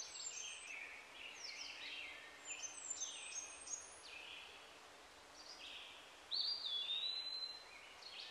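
A songbird singing: a run of short whistled notes and downward slurs for the first few seconds, then after a short lull a long whistle that sweeps up and holds. Faint steady background hiss underneath.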